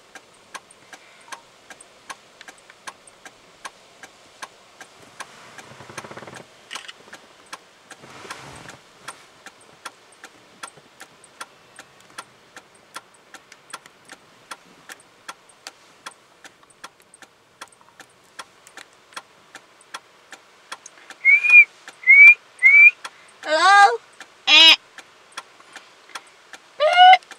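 Steady faint ticking, just under two a second. About twenty seconds in come three short high whistles, then loud rising-and-falling wordless calls from a person, trying to get a grizzly bear to lift its head.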